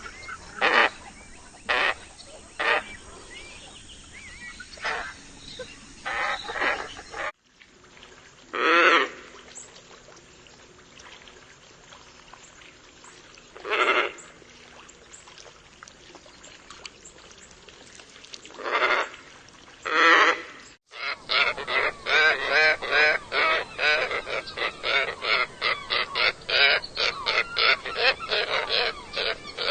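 Scarlet ibis calling: short calls scattered through the first quarter, a few longer, spaced-out calls in the middle, then a quick run of many calls, several a second, through the last third. The sound cuts off abruptly twice, where separate recordings are joined.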